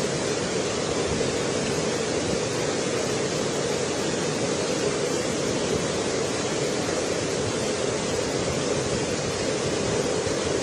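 Floodwater of an overflowing river rushing past in a steady, unbroken torrent.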